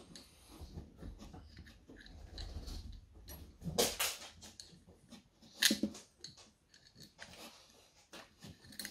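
A dog barking a few times, the loudest barks about four and six seconds in.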